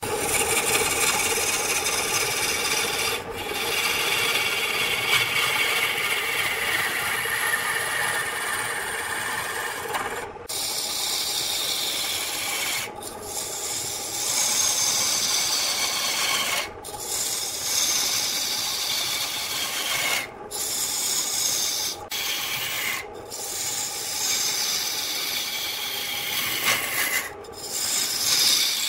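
Hand-held turning tool cutting into a spinning wood blank on a lathe, a continuous scraping as shavings fly off, its pitch slowly sliding up and down. The cutting breaks off for a moment about eight times.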